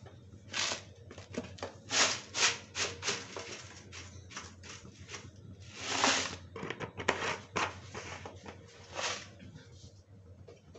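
Oil heating in a kadhai, crackling and spitting in irregular pops, with a longer sizzle about six seconds in.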